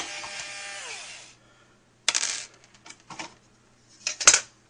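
Intro sound effect: a noisy swoosh with falling tones lasting a little over a second, then a scatter of sharp metallic clinks like dropped coins, loudest near the end.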